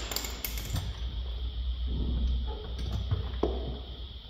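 Sharp clicks and knocks, then rubbing and scraping, as parts of a stripped Audi A6 front door are worked by hand. The loudest clicks come in the first second, with a last click about three and a half seconds in.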